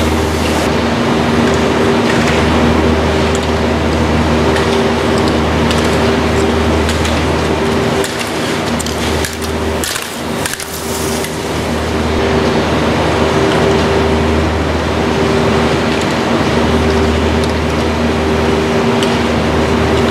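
Steady hum with several low tones under a loud even hiss, the machinery background of an indoor ski hall. About halfway through, skis scrape and carve across the snow as a skier passes close by.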